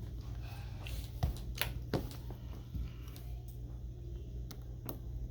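A handful of light, sharp clicks and taps, five or so spread irregularly, over a steady low hum.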